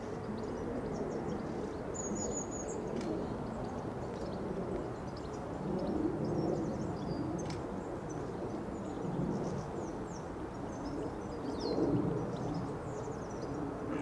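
Outdoor ambience with small birds chirping and twittering in short, high calls over a steady low rumble that swells now and then.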